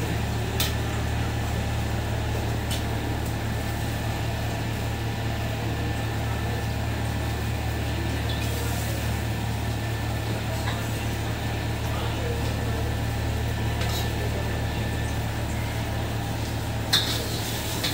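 Chicken simmering in spiced oil in a steel wok over a gas burner, under a steady low hum, with a few sharp clinks of the metal ladle against the wok.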